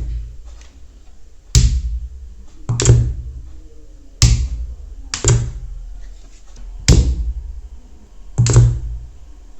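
A series of six sharp thumps, roughly one every second and a half, each followed by a short low boom that dies away.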